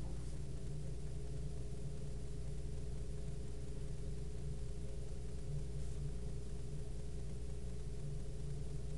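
A steady low machine hum with several fixed tones under a faint hiss, unchanging throughout.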